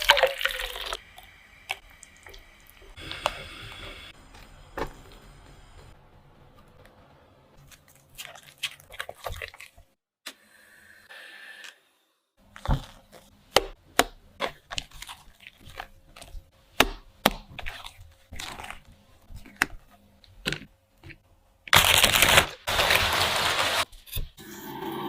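Food-preparation handling sounds: scattered clicks, knocks and crackles, then a loud rustling, crackling stretch of a couple of seconds near the end.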